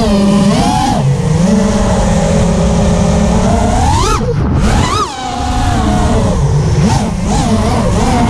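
FPV racing quadcopter's four RCX RS2206 2400kv brushless motors on 5-inch tri-blade props, buzzing and whining as the throttle changes, with rushing wind underneath. The pitch wavers up and down, and about four seconds in it shoots up sharply on a throttle punch, then falls away.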